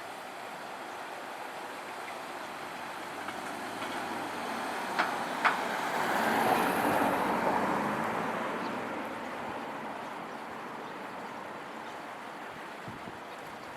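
A road vehicle driving over a railway level crossing: its sound swells to a peak about halfway through and then fades away. Two sharp knocks, about half a second apart, come just before the peak as its wheels go over the rails.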